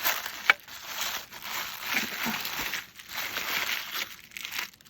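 Plastic wrap crinkling and crackling as it is peeled off an inked switch plate, with a sharp click about half a second in.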